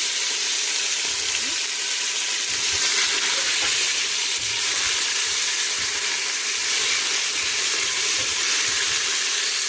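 Chicken neck frying in browned sugar in a pot: a loud, steady sizzle.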